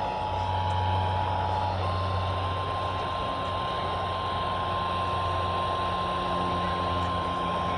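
Emergency Alert System attention signal over a radio with static and hum: the two-tone broadcast attention signal stops about two seconds in, and a single steady NOAA weather-radio alert tone follows and keeps sounding.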